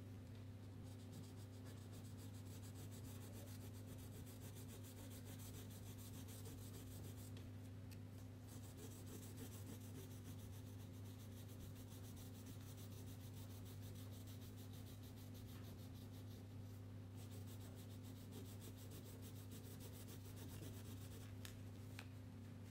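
Faint, continuous scratching of a crayon rubbed back and forth on paper while coloring, over a steady low electrical hum.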